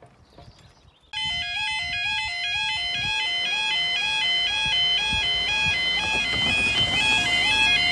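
Newly replaced level crossing warning alarms switching on about a second in, with the amber road light: electronic two-tone alarms alternating between pitches in a steady, repeating rhythm.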